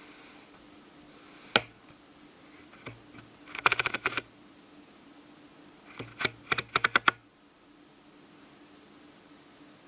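Sharp clicks in quick runs over a faint steady hum: a single click about a second and a half in, a rapid burst of about ten clicks around four seconds, and another burst of about seven near seven seconds.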